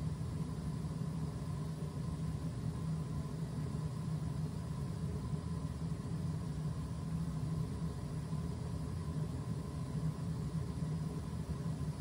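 Gas-fired PB Heat steam boiler running with its burner firing as it builds steam pressure: a steady low hum with a faint high tone above it.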